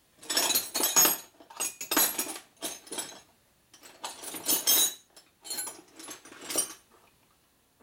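Metal wrenches clinking and clattering as they are rummaged through and picked out of a tool box, in a run of uneven bursts that stop about a second before the end.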